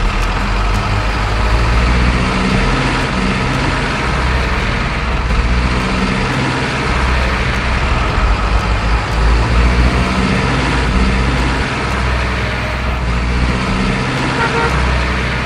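A truck engine running with a steady, uneven low rumble.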